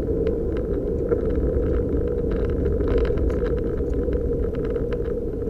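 A Suzuki Jimny JB23 heard from inside the cabin while driving along a road: its small turbocharged three-cylinder engine and the tyres make a steady drone, with light scattered ticks and rattles over it.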